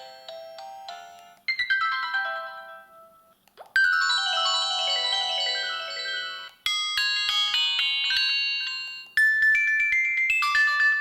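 MaxCom MM724 phone ringtones previewed one after another: five short electronic melodies, each cut off after two to three seconds as the next one starts.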